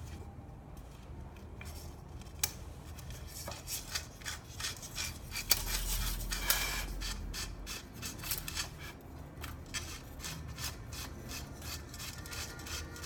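Spokes and nipples being worked into a bicycle wheel rim by hand: a run of small metal clicks and scraping rubs, louder for a couple of seconds around the middle.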